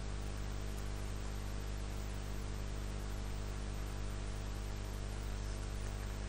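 Steady electrical mains hum with an even hiss underneath, a constant background drone with no change.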